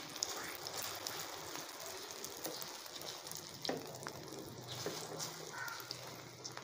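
Egg batter sizzling gently on a flat griddle (tawa) over low heat, with a few light clicks and scrapes of a steel spoon spreading it across the pan.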